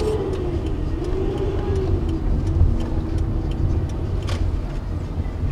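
Car interior road noise while driving: a steady low rumble, with an engine hum that rises and falls in pitch over the first few seconds.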